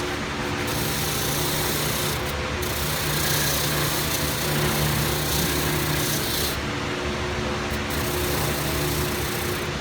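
Motor-driven wire wheel running steadily with a steady hum while rusty steel pliers are held against it, the bristles scratching off rust. The high scratching hiss drops away briefly twice as the pliers come off the wheel.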